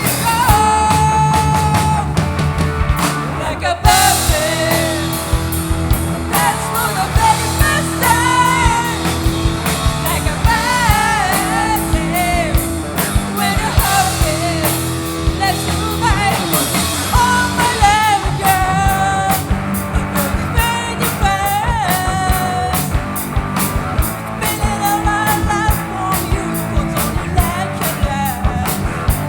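Live rock band playing with sung lead vocals over guitars, bass and drums, heard through a direct mixing-desk line feed.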